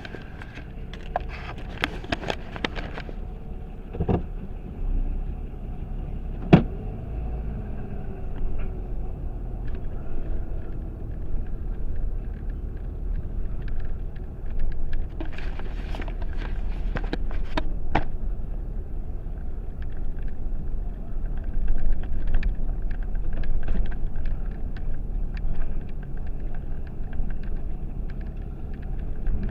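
Car driving, a steady low rumble of engine and road. Scattered clicks come in the first few seconds, with a single sharp knock about six and a half seconds in.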